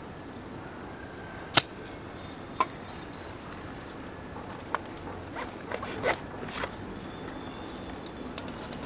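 Hands handling an airsoft gas blowback M4 magazine and its gas can: one sharp click about one and a half seconds in, another a second later, then a run of smaller clicks and clacks over a steady background hum.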